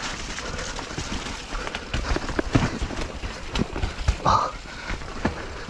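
Mountain bike rolling down a rough, muddy trail: tyres over dirt, rocks and roots with irregular knocks and rattles from the bike, and a short squeak about four seconds in.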